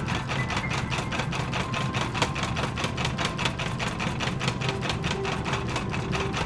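Power hammer pounding hot cable into a solid Damascus billet: a fast, steady run of blows, about six or seven a second.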